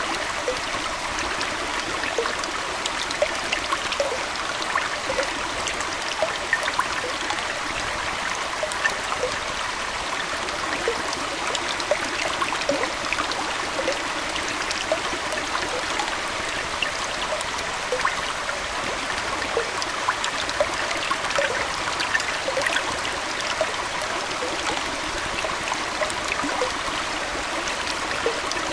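Aquarium water flowing and trickling steadily, with many small plops and droplet sounds scattered over an even watery wash.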